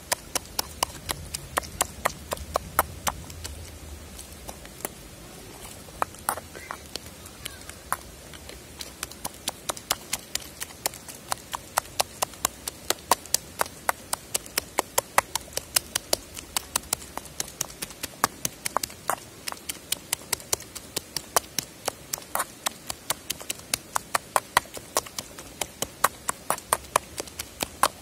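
Metal pestle pounding cooked lamb, potatoes and chickpeas in a stainless steel bowl, mashing them into the paste of dizi: sharp, repeated knocks and clinks of metal on meat and bowl. They come sparsely at first, then settle into a steady pounding of about three a second.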